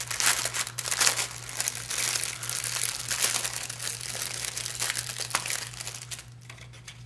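Sealed packaging crinkling and crackling as it is handled and opened to take out a plastic case, dying down about six seconds in.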